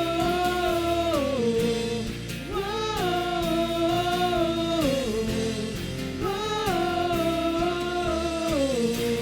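Live Christian worship music: a voice sings a wordless melody over the band, in long held notes, each phrase rising, holding and then sliding down, three times.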